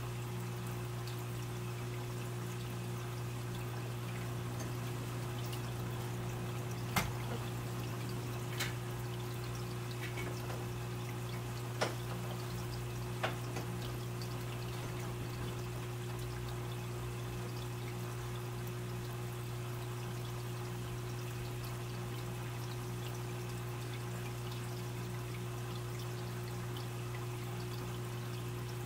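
Aquarium filter running: a steady trickle of water over a constant low hum, with a few sharp ticks in the first half.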